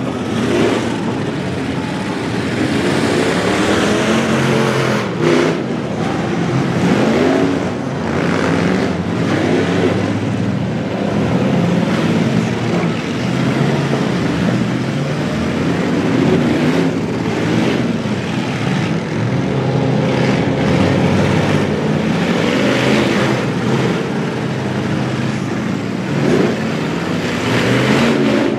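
Demolition-derby trucks' engines revving hard, rising and falling in pitch, with loud metal-on-metal crashes every few seconds as they ram each other.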